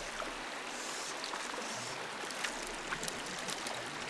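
A small rocky stream flowing steadily, with a few light ticks and splashes in the second half as a small hooked brook trout is brought to the surface.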